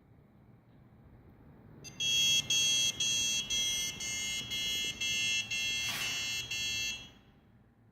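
Motherboard buzzer on a Huanan X79 Deluxe that fails to start, sounding a high beep about twice a second for roughly five seconds, with a sharp click about six seconds in.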